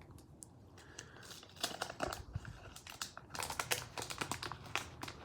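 Wax-paper wrapper of a 1990 Fleer basketball card pack crinkling and crackling as it is torn open by hand, beginning a little over a second in with a run of quick irregular crackles.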